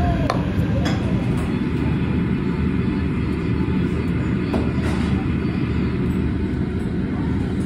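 Steady low rumble of background room noise, loud and unbroken, with a few light clicks about a second in and again around the middle.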